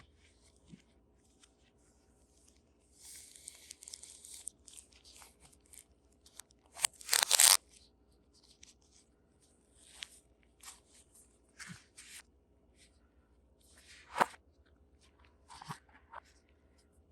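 Packaging being handled: scattered rustles, crinkles and light taps. The loudest, a brief crinkle, comes about seven seconds in, and a sharp tap comes a little after two-thirds of the way through.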